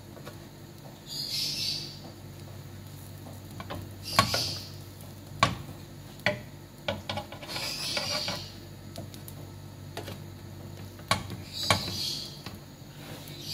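A slotted spatula scraping and pressing burger buns on a ridged grill pan, with several short bursts of sizzling as the buns toast in butter and a few sharp clicks of the spatula against the pan. A steady low hum runs underneath.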